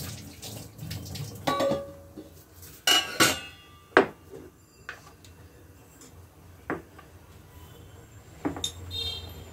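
Kitchen dishes and pots being handled: a string of separate clinks and knocks, some ringing briefly, the loudest around three to four seconds in.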